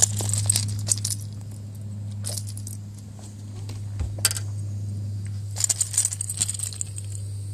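Clusters of sharp clicks and light metallic jingling from fishing tackle as a freshly caught fish is swung in and held up on the line, over a steady low hum.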